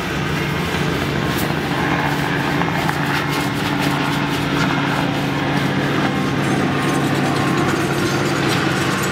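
Heavy equipment's engine running steadily in the background, a loud continuous hum with irregular mechanical clicking and clatter over it.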